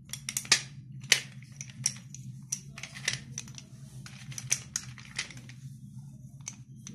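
Slate pencil sticks clacking against each other and a metal plate as a hand rummages through the pile: irregular sharp clicks, the two loudest about half a second and a second in, thinning out near the end. A steady low hum runs underneath.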